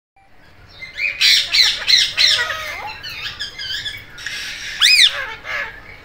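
Pet ringneck-type parakeets (Indian ringneck and Alexandrine) squawking. A quick run of harsh, repeated rising-and-falling squawks comes about a second in, then softer chattering, and one loud arching call near the end.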